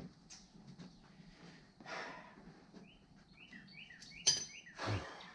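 A small bird chirping over and over in short, falling notes. A sharp clink that rings briefly comes about four seconds in, and a dull thud follows just after.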